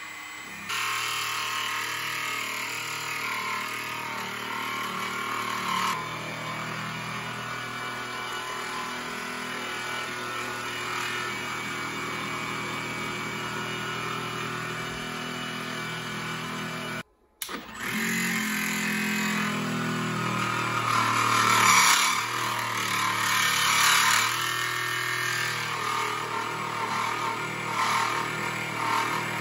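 Small benchtop milling machine running, its 6 mm end mill cutting brass as the workpiece is turned on a rotary table to enlarge a drilled hole. The sound stops for a moment partway through, and the cutting gets louder and rougher a few seconds later.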